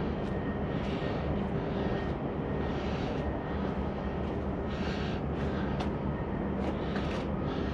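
Heavy diesel engine idling steadily, a low even hum.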